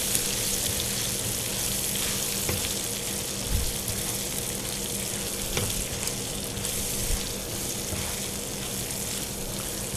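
Raw mango pieces sizzling steadily in hot mustard oil in a non-stick frying pan as they are stirred with a spatula, with a few soft knocks of the spatula against the pan.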